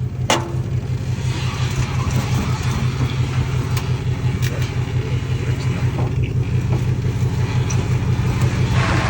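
A car engine idling with a steady, evenly pulsing low hum, and one sharp click about a third of a second in.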